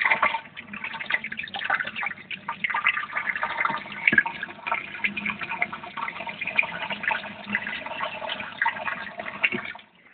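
Water trickling and splashing with many small drips, which cuts off suddenly near the end.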